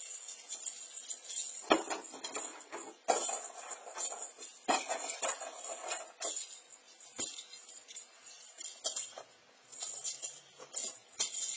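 The small bell of a jingle-ball cat toy jingling and clinking as the toy is handled, with four sharp knocks spread through, the first, about two seconds in, the loudest.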